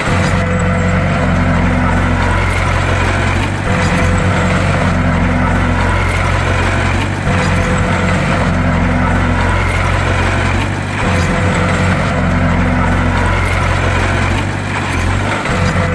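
Bulldozer's diesel engine running steadily, its note swelling and easing in a regular cycle about every three and a half seconds.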